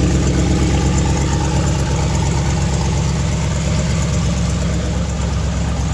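Gasoline pickup truck engine idling steadily just after a jump start, running on old gas.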